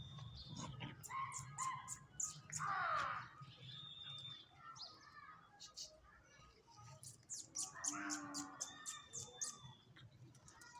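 Small birds chirping over and over with quick high notes. A louder call falls in pitch about three seconds in, and another louder call comes around eight seconds.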